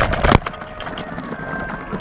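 Mountain bike riding fast down a dirt trail, heard from a handlebar-mounted camera: tyre noise and rattling of the bike, with a cluster of hard knocks in the first half second.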